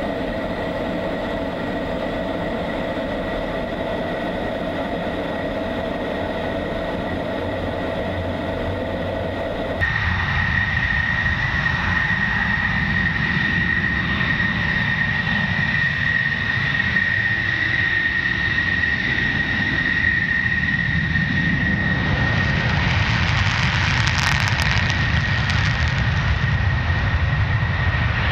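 F-16 Fighting Falcon jet engine on the runway: a steady whine with rumble, stepping up sharply in loudness about ten seconds in, where a piercing high whine dominates. From about two-thirds of the way through, a rushing hiss grows over it as the jet, on afterburner, pulls away down the runway.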